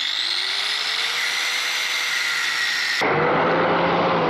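Compact angle grinder running with a high motor whine, its pitch climbing as it comes up to speed. About three seconds in the sound changes abruptly, and near the end the pitch drops as the motor spins down.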